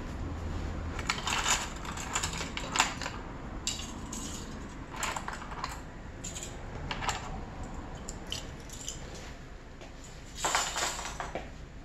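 Small metal binder clips and an eraser being handled and lifted out of a plywood organizer tray, clicking and clattering against the wood in several short bursts, the loudest near the end.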